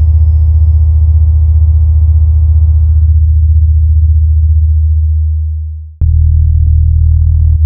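Heavy synthesized bass from a DJ sound-check track. A very loud, deep bass note holds steady, thins and fades away over about five seconds, then a new deep bass note cuts in abruptly about six seconds in.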